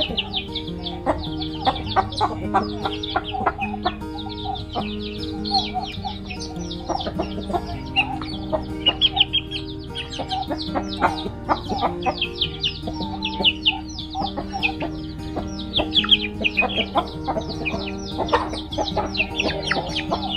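Free-range chickens calling: chicks peeping continuously in quick, high, falling cheeps, with hens clucking among them. Soft background music with sustained notes plays underneath.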